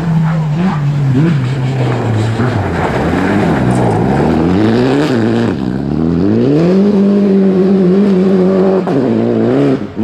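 Rally car engine revving hard on loose gravel, its pitch swinging up and down for the first few seconds, then climbing and holding high and steady, with a brief drop near the end.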